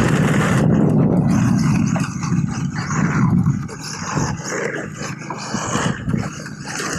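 Off-road RC rally car driving hard over a dirt stage: a loud, rough rumble of tyres, gravel and chassis that swells and fades.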